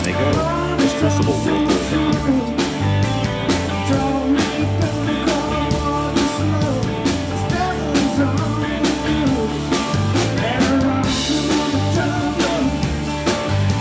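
Rock music with singing, drums and guitar and a steady beat.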